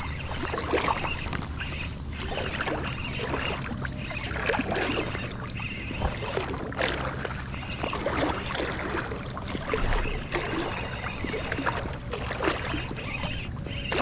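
Water splashing and sloshing as a hooked bass is fought in close to the angler.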